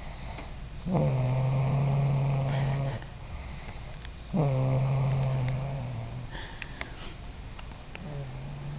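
Snoring: two long drawn snores about three and a half seconds apart, each starting with a quick drop in pitch and then held on a steady low droning tone for about two seconds. A fainter third snore begins near the end.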